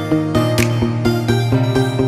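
Background music with a steady beat and bright melodic notes.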